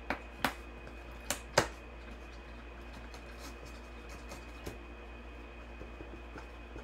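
A few sharp clicks or taps, four in quick succession in the first two seconds and a fainter one later, over a steady low electrical hum and a faint high whine.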